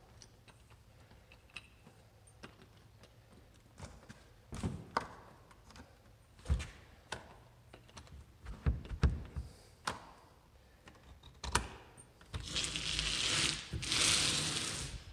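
Knocks and clicks of an exterior door and its knob being handled, then about three seconds of scraping, rushing noise near the end as the door is opened.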